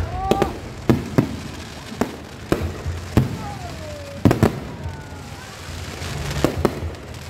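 An aerial fireworks display: shells burst with about ten sharp bangs at uneven intervals, a few short falling whistles sound in between, and there is crackling about six seconds in.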